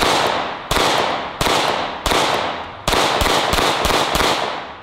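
Glock 19 9mm pistol fired in a string of loud shots, each echoing off, at a steady pace of about one every 0.7 s and then faster in the last couple of seconds.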